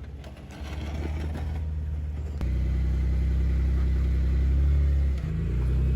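Off-road Jeep engine running under load while crawling, louder from about two and a half seconds in, with a brief dip near the end before it picks up again.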